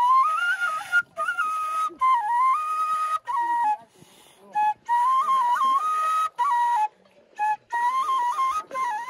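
Background music: a solo flute playing a slow melody in short phrases of stepped notes, with brief pauses between phrases.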